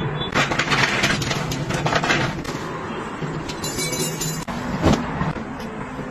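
Close-up household handling sounds: rustling and small clicks as things are moved about, with a dull thump about five seconds in, as an object is set down.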